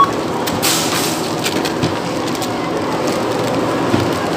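Plastic grocery packaging and bags rustling and crinkling as items are handled and bagged at a checkout, with one short barcode-scanner beep at the very start, over a steady background hum.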